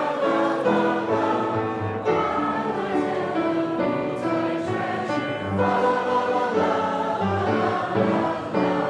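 A roomful of people singing a Christmas carol together, with piano accompaniment.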